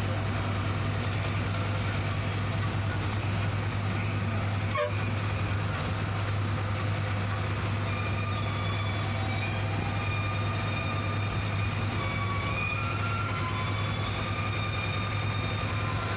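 BharatBenz BS6 bus's diesel engine running steadily at cruising speed, a constant low drone, heard from inside the cabin together with tyre and road noise.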